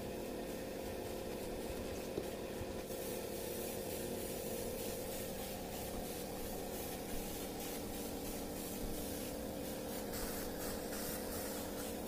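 Air spray gun hissing in repeated short strokes, spraying Caldera orange-peel texture paint onto a wooden speaker cabinet, over the steady hum of a running air compressor.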